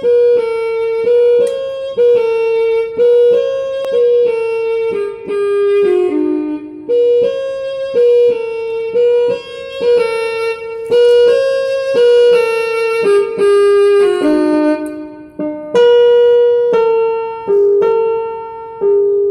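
Background music: a slow melody on a piano-like keyboard, played mostly one note at a time, about one or two notes a second.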